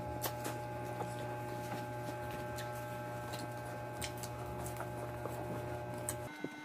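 Faint scattered clicks and soft taps of hands picking at rice and fish at a table, over a steady low hum that cuts off near the end.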